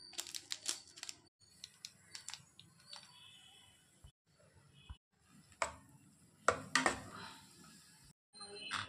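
Handling sounds: a plastic sachet of fruit salt crinkling, then a metal spoon scraping and clicking against a steel bowl as the batter is stirred. There are several sharp clicks, loudest toward the end.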